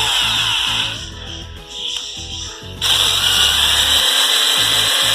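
Power drill boring holes into a PVC pipe joint: it runs, stops about a second in, and starts again near three seconds.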